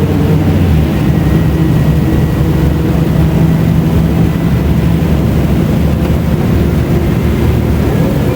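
Mercedes-Benz O500U city bus engine running under way, with its ZF automatic gearbox, a loud steady drone. Near the end the engine pitch rises.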